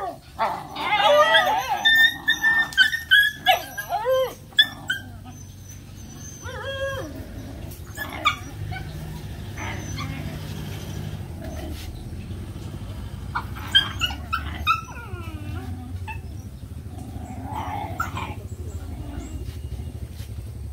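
Several young dogs whining and yelping excitedly, a dense run of high, wavering calls for the first few seconds, then only scattered whines.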